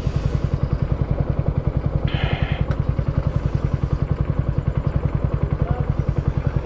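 Motorcycle engine idling with an even, steady beat. A brief scratchy noise and a click come about two seconds in.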